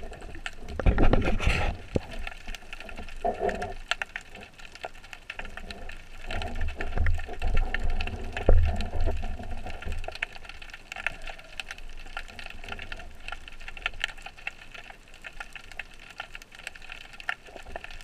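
Underwater sound through a camera mounted on a speargun: a steady watery rush with scattered clicks and knocks from handling the gun, and low rumbling swells of water movement a few times.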